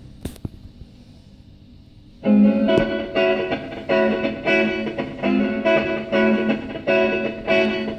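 A 45 rpm record playing on a vintage console record player: a few clicks over faint surface noise, then about two seconds in the song starts with a guitar intro of chords struck in a steady beat.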